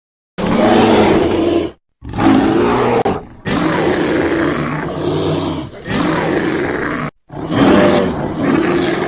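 Creature sound effects for a fictional beast: a run of about five rough, growling roars, each lasting a second or two, separated by short silent gaps.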